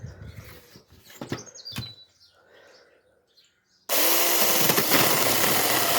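A few light knocks and clicks, then about four seconds in a battery mini chainsaw starts suddenly and runs loudly with a steady buzz.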